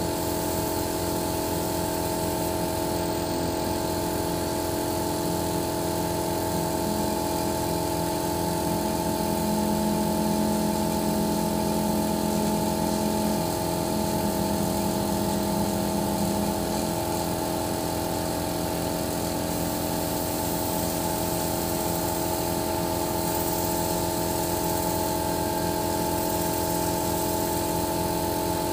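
An engine idling steadily, with an even, fast firing pulse under a constant hum of several steady tones.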